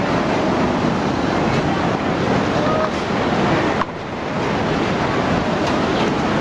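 Tsunami floodwater surging through streets: a loud, continuous rush of water that dips briefly about four seconds in.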